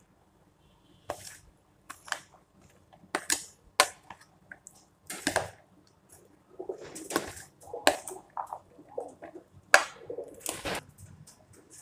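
Chopped vegetable salad being tossed and stirred with a plastic spoon in a plastic bowl: irregular moist crunching and rustling strokes as the pieces are turned over.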